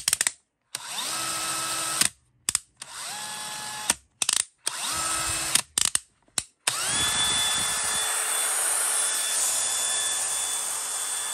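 DeWalt DCD999 20V brushless cordless hammer drill run with no load in trigger pulls, after a few quick clicks at the start. Four short bursts each spin up with a rising whine to a steady pitch. A longer run of about four and a half seconds near the end is higher in pitch.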